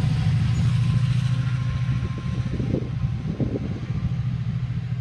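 Class 68 diesel locomotive's Caterpillar V16 engine running as it moves away, a low steady drone that fades gradually.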